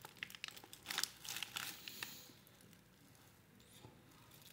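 White paper sandwich wrapper crinkling and rustling as the sandwich is held and bitten into, a quick run of crisp rustles for about two seconds that then dies down.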